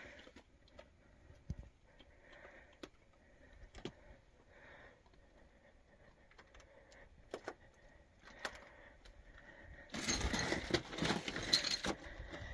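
Hiker's footsteps on loose desert rock and gravel: scattered scrapes and clicks at first, then a louder stretch of crunching steps from about ten seconds in.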